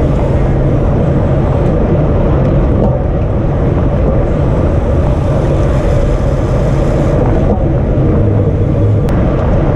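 Steady wind rush and road rumble on a bicycle-mounted action camera moving at racing speed.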